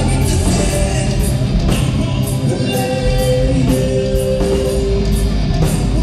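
A live rock band playing: a male lead singer holds long sung notes over electric guitars and a steady drum beat.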